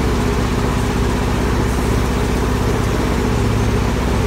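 Semi-truck diesel engine idling with a steady, unchanging low hum.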